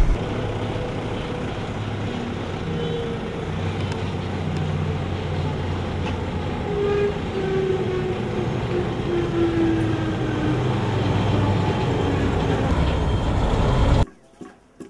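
Kartar 4000 combine harvester's diesel engine running as the machine drives along a road: a steady drone, with a tone that slides down in pitch partway through. It cuts off suddenly near the end.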